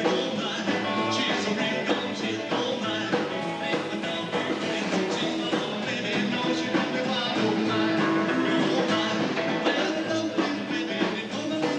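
Rock and roll band music: a full band playing a song.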